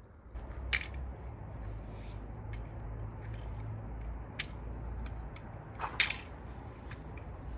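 Coiled steel hoop band for a barrel sauna being handled, giving several sharp metallic clicks and clinks, the loudest about six seconds in, over a low steady outdoor rumble.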